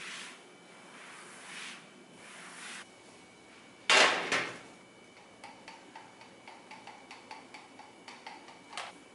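A cloth wiping a countertop in three soft swishes, then a metal baking sheet set down on a glass-top stove with a loud clatter about four seconds in. A run of quick faint ticks follows as olive oil is drizzled onto the sheet.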